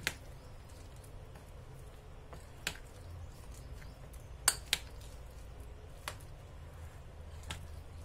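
A metal spoon stirring a thick semolina, curd and chopped-vegetable batter in a glass bowl, with about six sharp clinks of the spoon against the glass, two of them in quick succession about halfway through.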